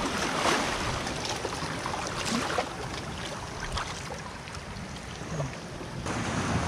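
Sea water washing among shoreline rocks: a steady rush of water with a few brief sharper splashes.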